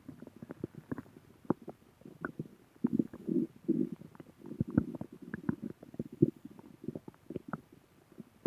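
A person's stomach growling: a string of quick gurgles and small pops, with longer rumbles from about three to six seconds in.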